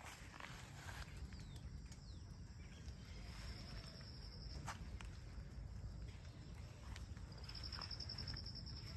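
An insect trilling in two bursts at one high, steady pitch, each about a second or more long, the second louder and near the end, over a faint low rumble with a few light clicks.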